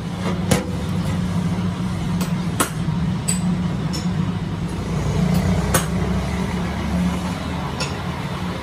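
Machine shop ambience: a steady low hum of running machinery, broken by about half a dozen sharp metallic clinks and knocks.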